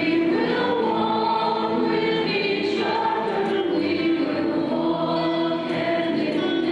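A choir singing a hymn in long, held chords.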